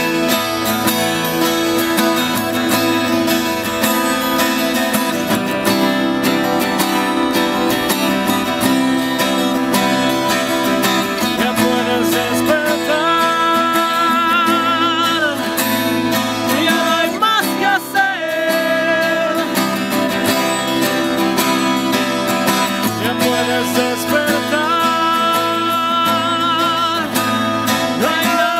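Two acoustic guitars strummed together in a folk song. Partway through, a man's voice comes in singing with vibrato, in several long phrases.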